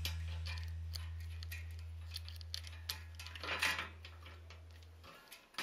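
Faint small metallic clicks and rattles of a bicycle chain being handled and fitted onto the rear sprockets, with a short jangle about three and a half seconds in. Under them a low steady hum slowly fades and stops about five seconds in.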